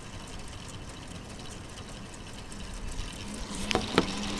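K'nex model engine turned by a small solar-powered electric motor, its plastic gears, camshafts and pistons running with a steady whir and a faint hum. Two sharp knocks come near the end.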